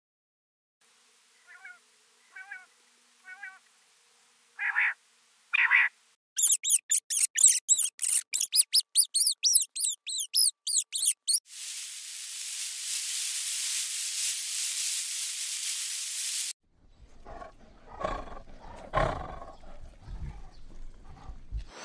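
A run of animal sounds. First come a few short chirping calls, then rats squeaking rapidly in high-pitched squeals for about five seconds, then a steady hiss for about five seconds, and finally a tiger growling in several rough growls.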